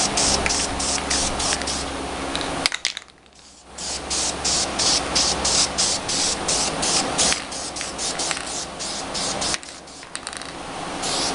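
Aerosol spray-paint can spraying a final coat in short, quick bursts, about three a second. The spraying stops for about a second around three seconds in and thins out for a couple of seconds near the end before picking up again.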